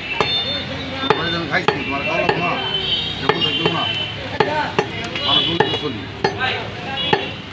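A heavy cleaver chopping beef into chunks on a wooden log chopping block: repeated sharp chops at uneven intervals, about ten of them.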